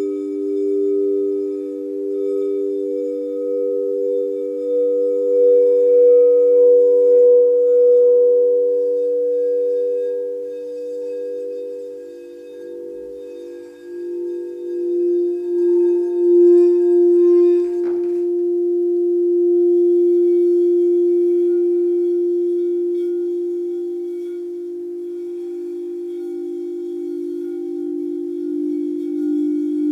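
Frosted quartz crystal singing bowls sung with a mallet around the rim, giving long overlapping tones that pulse slowly. Around the middle the sound moves to a lower bowl's tone, and a brief knock sounds a little later.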